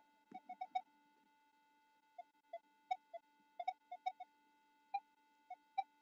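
Metal detector, a Minelab Equinox 800, giving short, irregular target beeps, about sixteen in all, some in quick runs, over a faint steady electronic tone.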